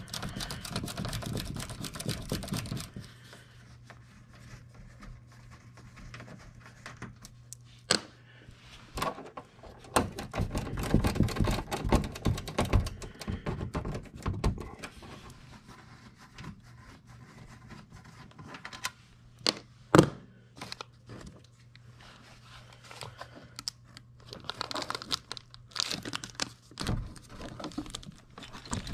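Hands working at the sheet-metal access panel of a 2004 ICP air handler: scraping and rustling, with scattered clicks and knocks, the sharpest about twenty seconds in. A low steady hum runs underneath.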